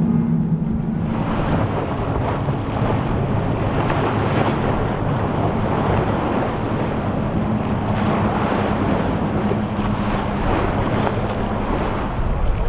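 Boat outboards droning steadily under the loud rush of broken water and spray, with wind buffeting the microphone; the hiss of water and wind swells in about a second in. The engines are the SeaVee's four Mercury 350 outboards.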